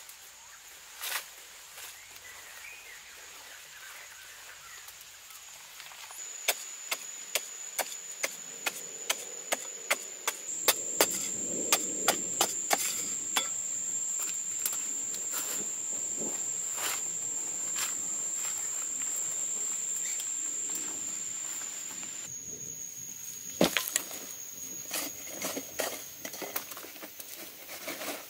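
Hands scraping and scooping loose dry soil, clods and small stones into a woven bamboo basket, with a run of sharp clicks and knocks as clods and stones land. A steady high-pitched whine runs through most of it.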